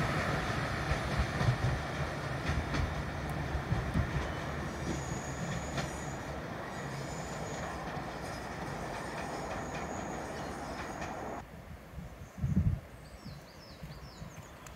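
Two-car diesel multiple unit pulling away down the line, its engine and wheels on the rails fading slowly, with a thin steady high squeal from the wheels. The train sound cuts off abruptly about eleven seconds in, leaving quiet open air with one low thump and a few faint chirps.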